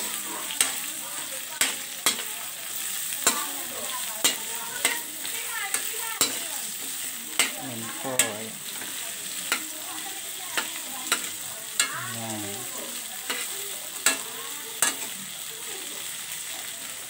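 Shrimp frying in garlic butter in a metal pan, a steady sizzle, while a slotted metal spatula stirs and turns them, clicking and scraping against the pan about once a second.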